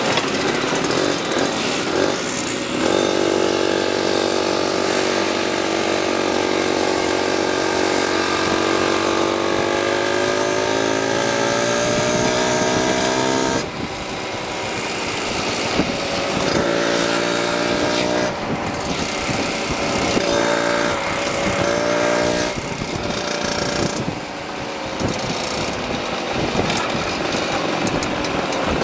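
Vintage two-stroke moped engines running on the move. One engine's pitch climbs steadily for about ten seconds as it gathers speed, then drops near the middle and rises and falls with the throttle.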